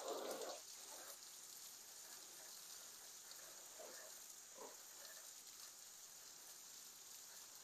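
Faint steady hiss of water spraying from a garden hose onto a car, with a brief louder splash right at the start.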